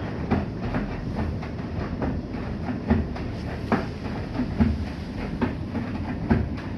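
Bosch i-Dos WGG154A10 front-loading washing machine running its wash phase: a steady low rumble from the turning drum, with irregular thuds and knocks about every second as the laundry tumbles.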